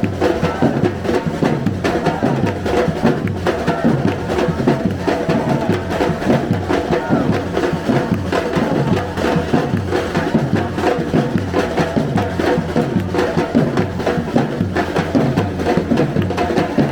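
Live street band music: horns over a repeating, stepping bass line, with drums and percussion keeping a steady beat.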